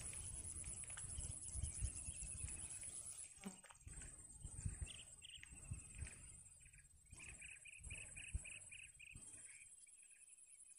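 Faint evening marsh ambience: a steady high-pitched insect drone that drops out briefly about three seconds in, over low wind rumble and a few soft thumps. Around seven seconds in an animal gives a quick run of about eight evenly spaced call notes.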